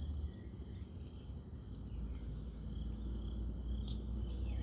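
Crickets and other insects calling: a steady high trill with short, higher pulses repeating about twice a second above it, over a low rumble.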